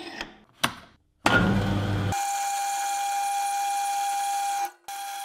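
Horizontal metal-cutting bandsaw starting up, then its blade cutting through a steel bar with a steady whine. The whine breaks off abruptly near the end and comes back quieter. A few light metal clicks come first, as the bar is set in the saw's vise.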